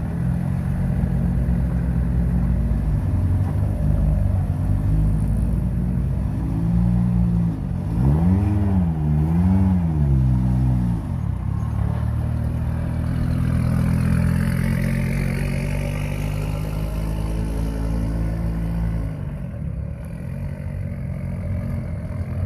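Audi Quattro Group B rally car's turbocharged five-cylinder engine running, with a few quick throttle blips about eight to ten seconds in that make the pitch rise and fall several times. A higher whine swells and fades a few seconds later, and the engine note drops near the end.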